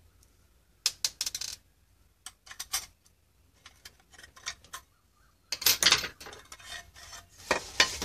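Clicks, light metal clatter and scraping from a screwdriver and hands opening the aluminium case of an HD audio decoder box, in scattered clusters, loudest at about six seconds and again near the end as the circuit board is slid out.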